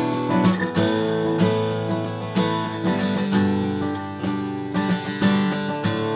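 Martin custom shop Style 28 steel-string acoustic guitar, with a Sitka spruce top and Madagascar rosewood back and sides, being strummed and picked. Ringing chords change about once a second.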